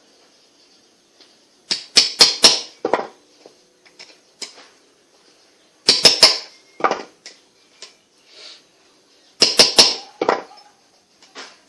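Ball-peen hammer striking metal on a wooden board, tapping at a jigsaw bearing. The blows come in three bursts of four or five quick, sharp strikes a few seconds apart, with a few lighter knocks between them.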